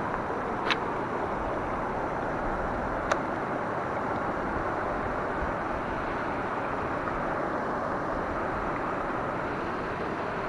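Steady rush of river water running over rocks and rapids, with two short sharp clicks, one within the first second and one about three seconds in.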